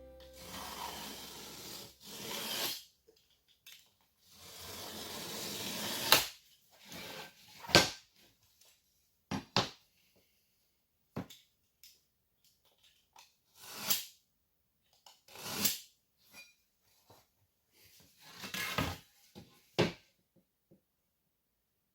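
Gypsum board being worked by hand: two long scraping strokes, then a series of sharp knocks and taps with short scrapes in between.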